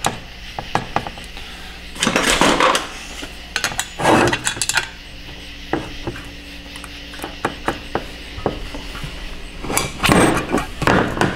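A metal pick clicking and scraping against a 4L60 valve body while prying a small retaining clip out of its bore: many light metallic ticks, with three louder scratchy stretches about two, four and ten seconds in.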